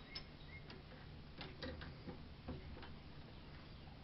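Faint, irregular light clicks and taps, about half a dozen of them, as metal parts and tools are handled at a lathe, over a low steady hum.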